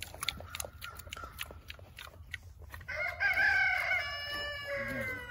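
A rooster crows once: a long call of about two seconds, starting about three seconds in, its pitch sagging toward the end. Before it there is a run of small clicks and rustles from the piglets nosing and chewing at a hand.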